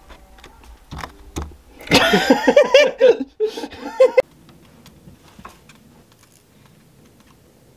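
Laughter in choppy bursts for about two seconds, starting about two seconds in, after a couple of light knocks. Quiet handling clicks follow.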